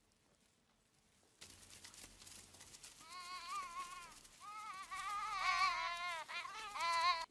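A run of high, quavering animal calls in quick succession, their pitch wobbling rapidly, starting about three seconds in and getting louder toward the end. They are set over a rustling scuffle that begins about a second and a half in.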